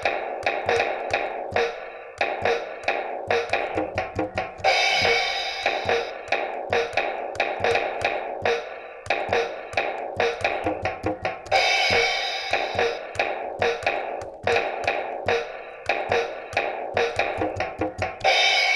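Electronic toy finger drum kit played by fingertip taps, its built-in speaker sounding a fast, busy drum beat of sampled kick, snare and tom hits, with a cymbal crash about four and a half seconds in, again near the middle and near the end.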